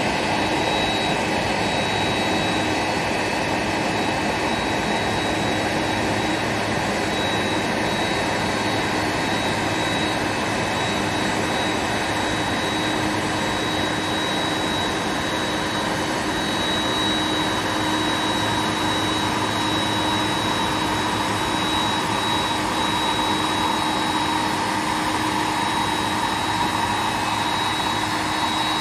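Boeing 747-400F's jet turbines running at ground idle: a steady whine over a broad rushing hiss, with no change in level or pitch.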